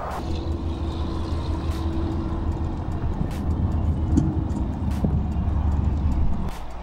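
Steady low rumble of water noise picked up by a submerged camera, with a faint steady hum over it. It cuts off shortly before the end.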